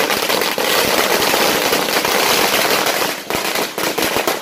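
Firecrackers bursting on pavement in a rapid, dense string of sharp bangs that thin out into more separate cracks near the end.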